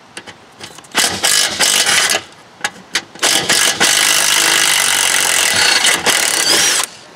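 Cordless impact driver running on a half-inch engine mounting bolt of a lawn mower deck, loosening it: a short burst about a second in, two brief blips, then a long run of about three and a half seconds that stops just before the end.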